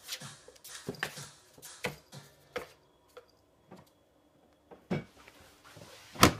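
A cat rummaging in a cardboard box on a wooden floor: irregular light clicks and knocks of the cardboard being nosed and shifted. It goes quiet for a second or two in the middle, then there are a few louder knocks near the end.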